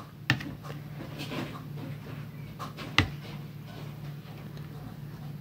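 Glass tumblers being set down on a plastic plate: two sharp knocks, the louder about three seconds in, with a few lighter taps, over a low steady hum.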